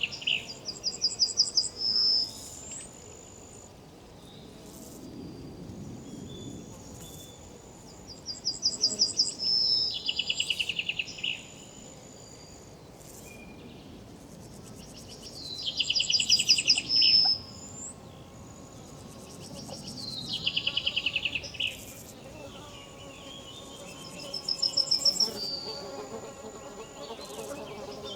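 Riverside insect calling in loud bouts of rapid pulses, high in pitch and sliding lower, each about two seconds long and repeating every four to six seconds, over a faint background wash.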